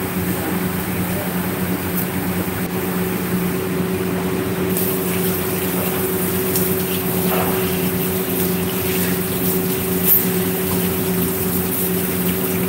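Tap water running onto a fish and into a stainless-steel sink as it is rinsed, the splashing growing stronger about five seconds in. Under it runs a steady low electrical hum from kitchen equipment.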